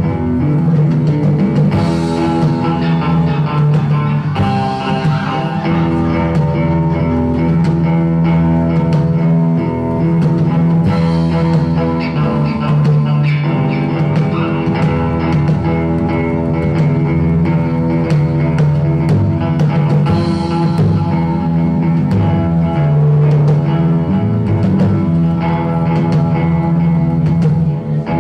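A rock band playing live: electric guitars holding sustained, ringing chords over a drum kit with steady cymbal hits.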